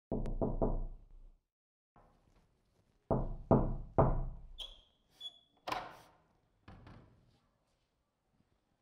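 Knuckles knocking on a wooden door: three quick knocks, then three louder ones about three seconds in. A short high squeak and a sharp clack follow about five seconds in.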